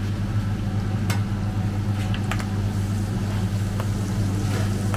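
Steady low mechanical hum with a few light clicks and knocks over it.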